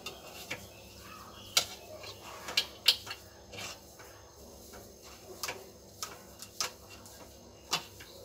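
Light, irregular metallic clicks and taps, about a dozen, as fresh chhena is crumbled by hand in a steel mesh strainer over a steel plate, with the strainer knocking against the metal. A faint steady hum lies underneath.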